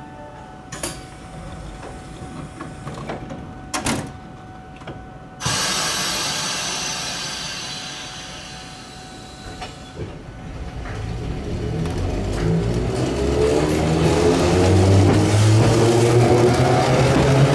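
Randen Mobo 611-series tram starting off. About five seconds in there is a loud burst of air hiss that fades away over a few seconds. From about eleven seconds the motor whine rises steadily in pitch and grows louder as the tram pulls away.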